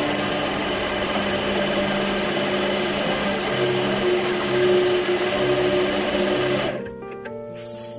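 Wood lathe running with a steady high whine while sandpaper is pressed against the spinning wooden vase, giving a rough, continuous rubbing hiss. The sound drops away sharply about seven seconds in.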